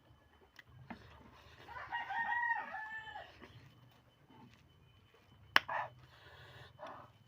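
A rooster crows once, a stepped call about a second and a half long, starting near two seconds in. A few seconds later comes a single sharp click, the loudest moment, among small eating noises.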